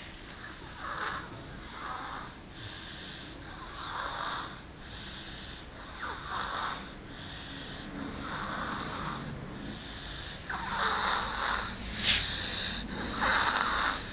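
A sleeping baby snoring, rhythmic breathy snores about once a second, growing louder near the end.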